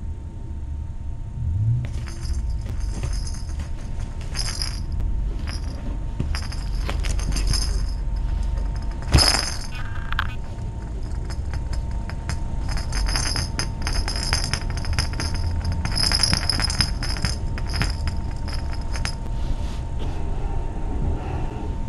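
A small jingle bell rattling in short, irregular bursts of high ringing, as when a bell toy is batted or carried about, with one sharp knock about nine seconds in.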